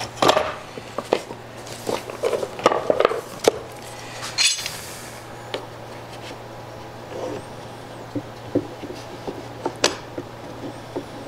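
Metal bar clamps clicking and clanking as their jaws are slid into place and tightened onto a glued-up wooden case, in a string of sharp knocks, over a steady low hum.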